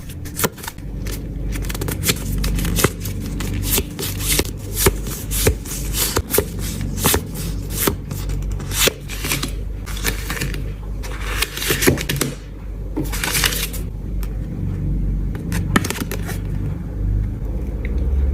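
Plastic packaging and card sleeves crinkling and crackling in quick, irregular clicks as photocards are unwrapped by hand, with two longer ripping sounds about two-thirds of the way through.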